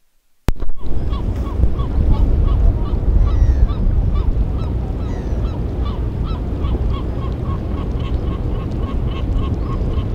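A flock of geese honking, short calls repeated a few times a second, over a strong low rumble. The sound cuts in suddenly with a click about half a second in.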